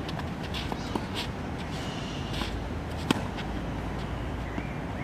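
Tennis rally: a tennis ball struck by a racket gives one sharp pock about three seconds in, with fainter ball taps and court footsteps earlier, over steady outdoor background noise.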